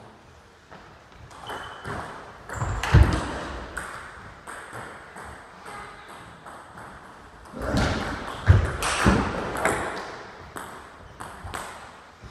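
Table tennis balls clicking off bats and the table in quick exchanges, in runs of sharp ticks. Twice a louder, deeper thud stands out, about 3 s and 8.5 s in.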